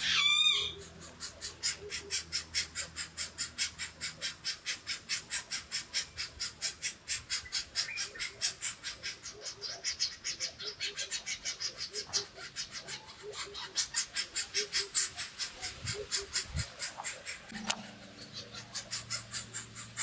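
Golden-tailed woodpecker nestling begging at the nest hole: a steady, rapid run of short rhythmic calls, about three to four a second, with one loud call at the very start.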